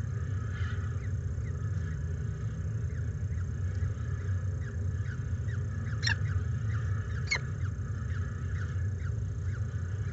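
Peregrine falcon chick cheeping while being fed: a run of small, quick, falling chirps, two or three a second, with two louder, sharper calls about six and seven seconds in. Under them runs a steady low hum.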